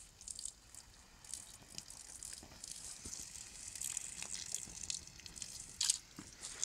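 Water trickling onto a campfire's hot embers and ash, which hiss faintly and crackle as they steam: the fire being doused out.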